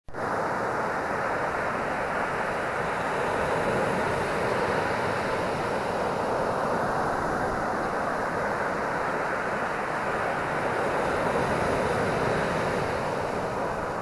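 Atlantic Ocean surf breaking and washing up a sandy beach: a steady, even rush of breakers, swelling slightly a few seconds in and again near the end.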